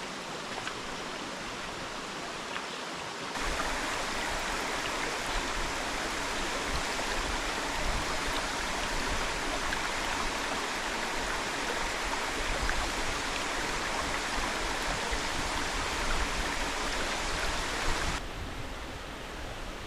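Rushing water from a flowing waterfall and creek, a steady splashing hiss. It grows louder and fuller about three seconds in and loses some of its brightness near the end.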